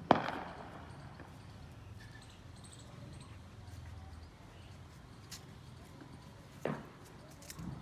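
One sharp knock right at the start, then a few faint scattered taps and scuffs of a German Shepherd puppy's paws moving about on stone paving.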